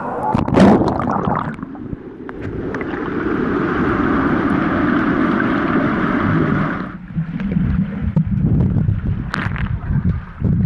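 Swimming-pool water splashing and rushing around a camera, with a loud splash about half a second in. The rush cuts off sharply about seven seconds in, leaving muffled, low underwater sloshing as the camera is held below the surface.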